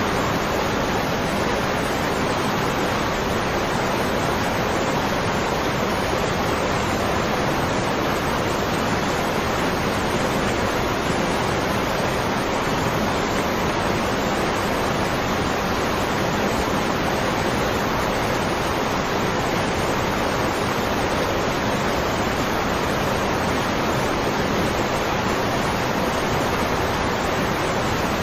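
Waterfall rushing steadily: an even, unbroken noise of falling water with no change in level.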